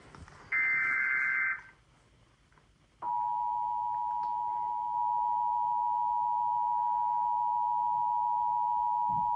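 Emergency Alert System signal: a short burst of SAME header data (a harsh digital warble), then about three seconds in the EAS two-tone attention signal comes on and holds steady, announcing a flash flood warning.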